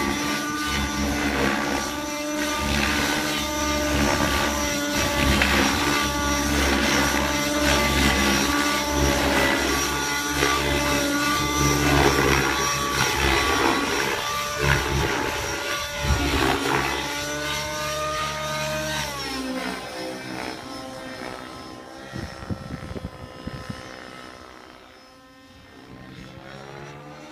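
Nitro two-stroke YS 91SRX engine and rotors of a Trex 700 RC helicopter flying aerobatics, the engine note rising and falling as it manoeuvres; the engine is set to a rich tune. The sound fades away about 19 seconds in as the helicopter climbs high, and starts to come back near the end.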